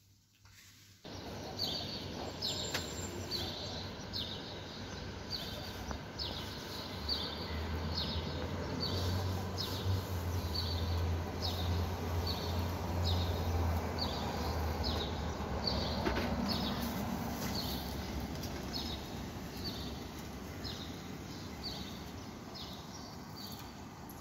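Outdoor ambience: steady background noise with a small bird chirping over and over, about two chirps a second. A low hum swells up in the middle and fades again.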